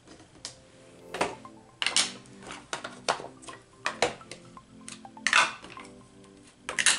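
About six short, sharp noises of paper and craft tools being handled and worked, louder than the soft background music with its steady held notes.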